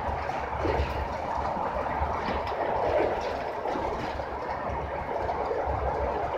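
Aeroexpress electric train running at speed, a steady rumble of wheels on rails heard from inside the carriage as it passes through a station.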